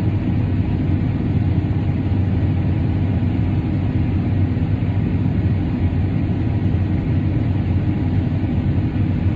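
A vehicle engine running steadily: a low, even drone that does not change speed.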